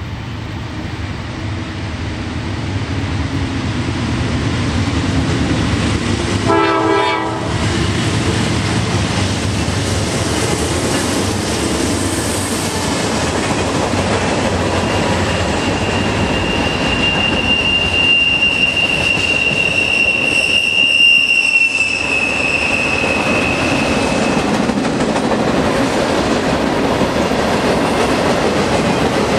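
Freight train led by a pair of GE C40-9W diesel locomotives rolling past, growing louder over the first few seconds, then the steady running noise and clickety-clack of freight cars. A high, steady wheel squeal comes in about halfway and lasts some nine seconds.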